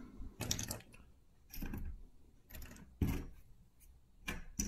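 Plastic Cobi building bricks and axle pieces being handled and pressed together: about five short clicks and rattles, roughly a second apart.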